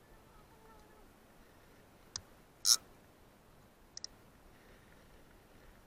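Handling noise from the angler's hands and fishing gear close to the microphone: a sharp click, a short brushing rustle about half a second later, then two more clicks near four seconds in.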